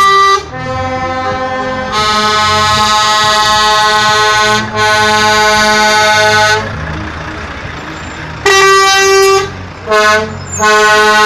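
Truck air horns blowing a series of loud pitched blasts, two long ones of about two seconds each, then after a pause three shorter ones near the end, over the low running of diesel truck engines.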